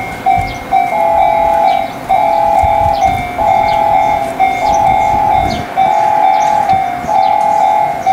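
Repeating electronic railway warning tone, short beeps about twice a second that turn, about a second in, into longer two-note pulses about once a second, with a train rumbling underneath.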